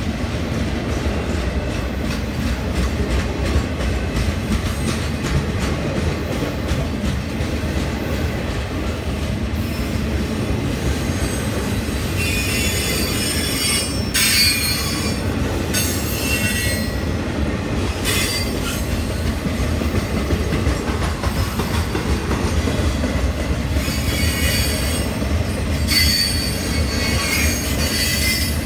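Freight train boxcars rolling past with a steady low rumble of wheels on rail. High-pitched wheel squeal comes and goes, about halfway through and again near the end.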